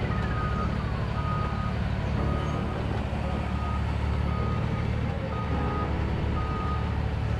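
Excavator's diesel engine running steadily while its travel alarm beeps about once a second as the machine tracks. A short falling whistle sounds in the first second.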